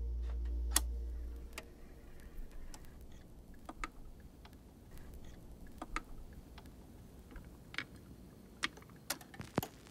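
Sparse, irregular clicks and pops from a suitcase record player as the tonearm is handled and the stylus set down on a spinning vinyl record. A low hum fades out over the first second or so.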